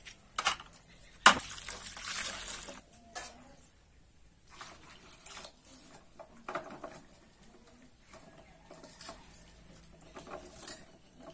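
Peeled taro roots being rubbed and washed by hand in a steel bowl of water, with water splashing in short, scattered bursts. About a second in there is a sharp knock, followed by a couple of seconds of noisy rustling.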